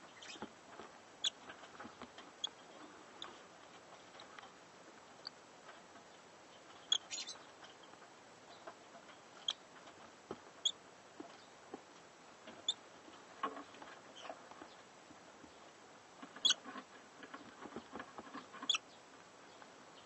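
Tiny high-pitched squeaks from newborn lovebird chicks in the nest, a dozen or so short peeps scattered irregularly. Between them comes the scratching and rustling of the parent birds shifting in the wood-shaving bedding, loudest in two patches in the second half.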